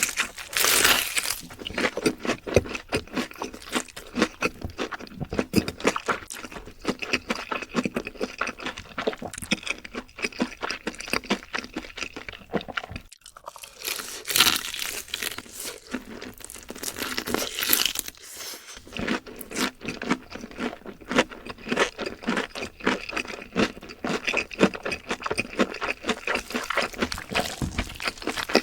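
Close-miked crunching and chewing of crispy fried chicken: loud crackling bites, a few seconds of fast crunchy chewing after each, with brief pauses between mouthfuls.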